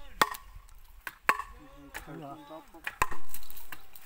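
Wood being split by hand on a chopping block: three sharp chops of a blade into the wood, the loudest about three seconds in.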